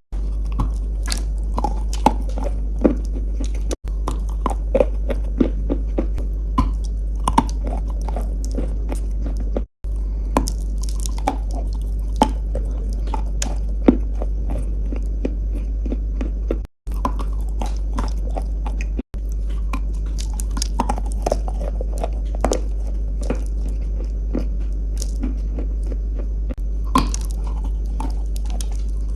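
Close-miked biting and chewing of crunchy chalk or clay, a rapid irregular run of crisp crunches and soft wet chewing, over a steady low hum.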